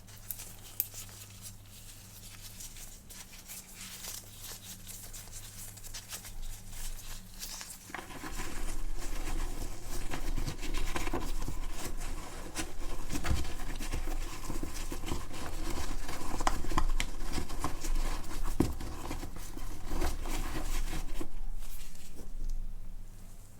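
Close-miked handling sounds of an iPhone unboxing: rustling, crinkling and small clicks and taps of packaging being handled. The sounds grow louder and denser about a third of the way in and ease off near the end, over a steady low hum.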